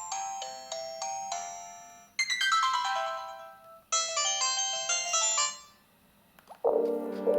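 Panasonic KX-TU250 mobile phone playing short melodic ringtones through its speaker, three different tunes in turn, each cut off after a second or two. After a brief silence, fuller music starts near the end.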